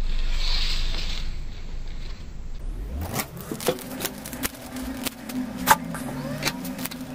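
A deep low rumble that rises in pitch and stops about three seconds in. Then steel scissors snip through folded paper, a run of sharp clicks and cuts.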